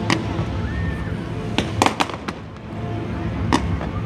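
Fireworks bursting: about five sharp bangs, two of them close together in the middle, over music playing in the background.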